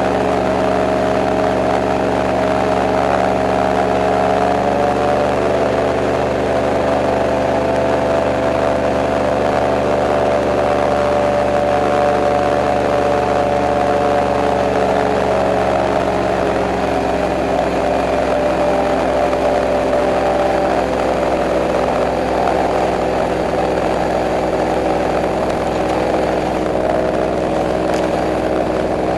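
Airboat engine and propeller running at cruising speed: a loud, steady drone whose pitch shifts slightly a couple of times as the throttle changes.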